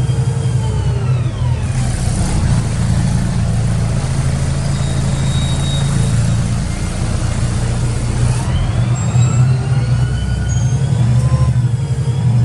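Karosa B961 articulated city bus heard from inside the passenger cabin while under way: a steady engine drone. Over it a whine drops in pitch near the start and climbs again near the end as the bus slows and then picks up speed.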